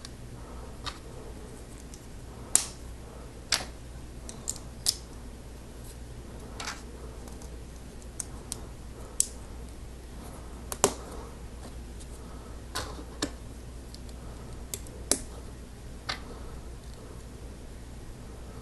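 Plastic LEGO bricks and pieces clicking and tapping as they are handled and pressed together, in irregular single clicks a second or more apart over a steady low hum.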